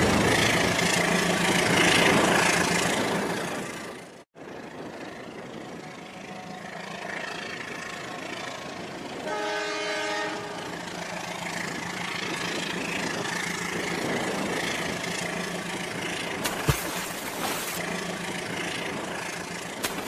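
Battery-powered toy train running on its track with a motor hum. After a brief cut, a toy train pushes through shallow water over flooded track, and a train horn sounds once for about a second near the middle.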